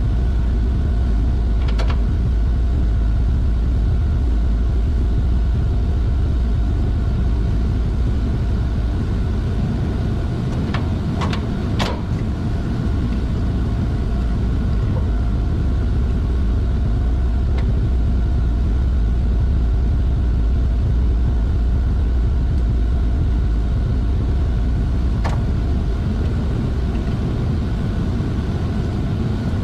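Steady low drone of running industrial plant machinery, motors and pumps in a chiller plant, with a constant hum and a few steady tones above it. A few sharp clicks or knocks come through: one about two seconds in, three in quick succession around the middle, and one more late on.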